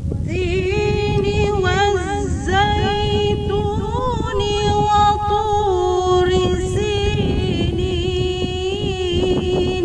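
A woman reciting the Qur'an in tarannum style, the melodic chanted recitation, in one voice that holds long notes with wavering, ornamented turns of pitch. A steady low rumble runs underneath.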